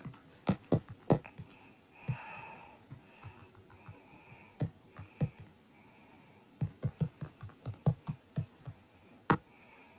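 Fingers tapping on an iPad's on-screen keyboard while typing. Taps are spaced out at first, then come in a quicker run in the second half, with one sharper tap near the end.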